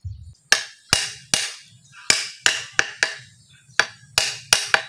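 A hammer striking a metal hinge on a concrete post about eleven times in quick, uneven blows, each with a short ring. The blows fix the hinge in place.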